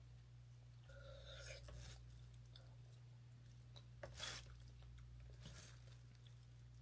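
Near silence: a steady low hum of room tone, with a couple of faint, brief soft noises, one about a second in and one just after four seconds.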